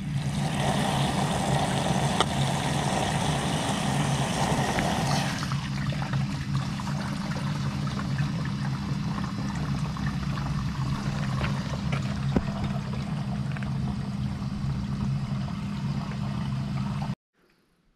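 Water pouring into the 10-litre tank of a Koshin EP-10P engine power sprayer, with a steady low hum underneath. The rush of water is strongest for the first five seconds or so, then quieter, and the sound stops abruptly near the end.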